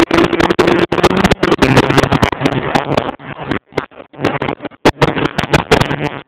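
Wind buffeting a phone microphone in a moving Audi A4, choppy and cutting in and out, with a steady engine hum underneath that fades about halfway through.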